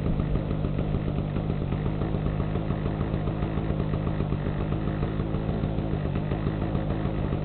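Small two-stroke portable generator engine running steadily at a constant speed, warming up after a cold start.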